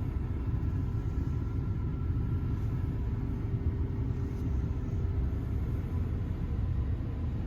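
2009 Chevrolet Avalanche's V8 engine idling, heard from inside the cab as a steady low rumble with a faint hum above it.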